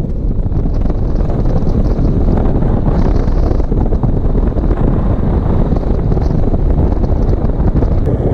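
Heavy wind buffeting on a GoPro Hero 5's built-in microphone while moving at speed with no windproof cover: a loud, steady, low rumble over the faint sound of the vehicle.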